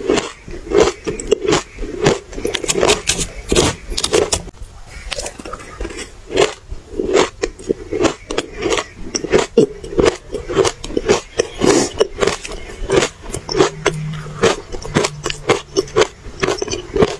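Close-miked chewing of crunchy, powdery refrozen ice dusted with matcha powder: a steady run of sharp crunches, about two or three a second.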